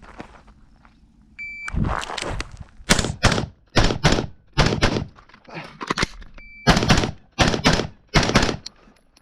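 Shot timer start beep, then a rifle fired rapidly, shots mostly coming in close pairs, about a dozen over seven seconds.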